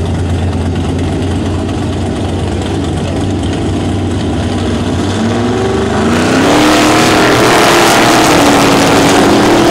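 Drag-race car engines idle at the start line with a steady low rumble. About six seconds in, two cars launch side by side at full throttle and the sound jumps to a loud roar whose pitch climbs as they accelerate away.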